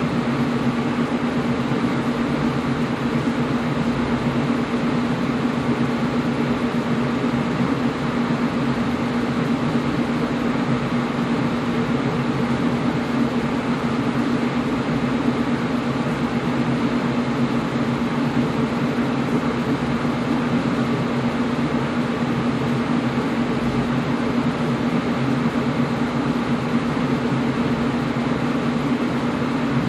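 Air conditioner running steadily: an even rushing noise of air with a constant low hum underneath.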